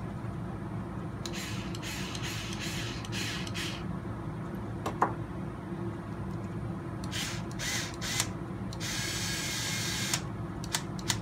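Cordless electric screwdriver whirring in short spurts as it drives the ball-stud fastener into a brass steering knuckle on an RC truck, with one longer run of about a second near the end. A sharp click comes about halfway.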